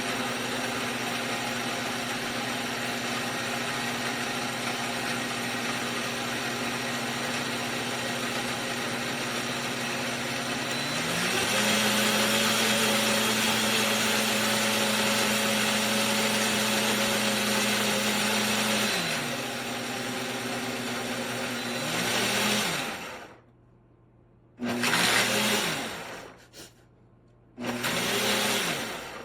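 Enfmay 2000 W jug blender motor running steadily. It changes speed about a third of the way through and changes back, then winds down with falling pitch. It then runs in two short pulses.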